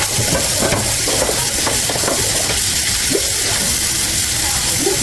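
Kitchen tap running hard into a sink: a steady, loud hiss of water that starts suddenly.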